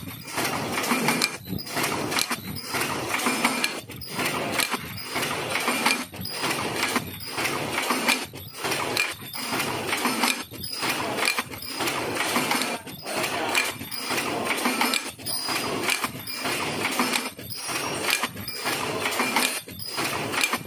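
Automatic mask welding machine with feeder and stacking conveyor running: a continuous mechanical clatter that drops out briefly about once a second as each machine cycle repeats.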